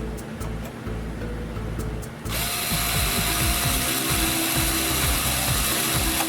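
Background music, joined about two seconds in by a louder, continuous ratcheting, grinding mechanical noise.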